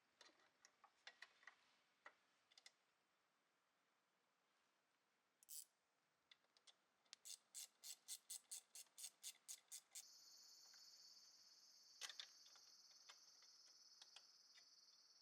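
Faint scattered clicks and taps, then a quick run of about a dozen evenly spaced clicks, followed by a steady high hiss that starts about ten seconds in and carries on, with a few more clicks over it.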